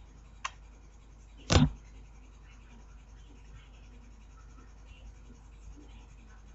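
Mostly quiet room tone with faint soft rustling, a faint click about half a second in, and one short, louder bump about a second and a half in.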